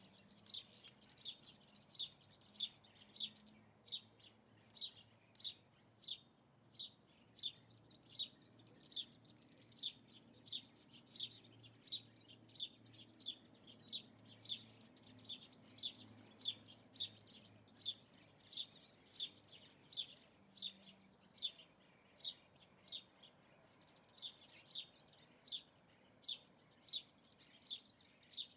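A bird repeating one short, high chirp over and over at an even pace, about one and a half notes a second.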